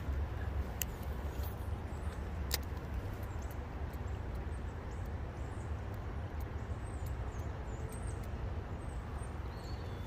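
Steady low rumble of distant road traffic, with two sharp clicks in the first few seconds and faint high chirps.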